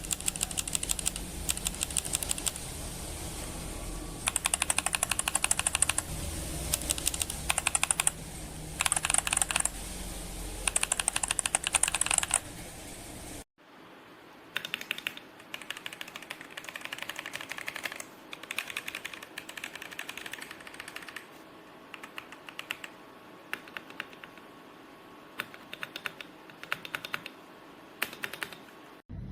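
Typing on a mechanical keyboard fitted with Akko V3 switches, in quick bursts of keystrokes with short pauses between. About halfway through the sound cuts to a second take, where the typing is quieter and the background hum has dropped away.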